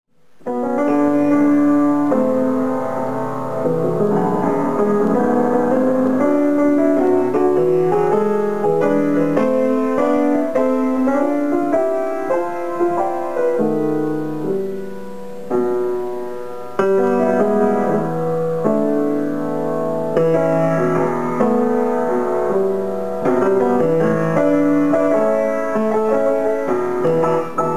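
Grand piano played solo: sustained chords under a moving melody, starting abruptly just after the start and continuing steadily.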